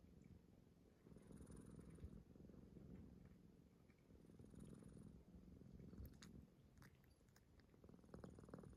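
Faint snoring: a low rumble that swells and fades with each breath, every couple of seconds. A few faint clicks come in past the middle.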